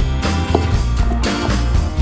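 Background music: an upbeat band track with drums and a steady bass line, about two beats a second.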